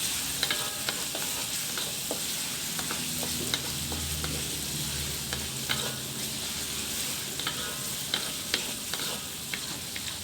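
Pounded shallots, garlic and ginger sizzling in hot oil in a wok, with a spatula scraping and tapping against the pan at irregular moments as they are stirred. The aromatics are being fried until crisp.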